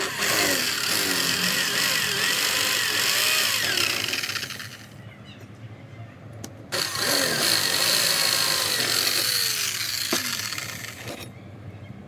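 Homemade 12V cutting machine driven by a 775 DC motor, run in two bursts of about four seconds each: each starts suddenly with a loud, harsh whine whose pitch wavers, then fades out as the motor stops.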